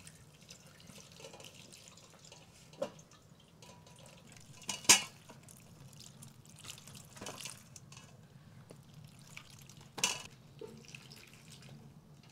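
Water poured from a clay jug trickling and dripping over peeled onions in a metal colander as they are rinsed by hand. Sharp knocks sound four times, the loudest about five seconds in.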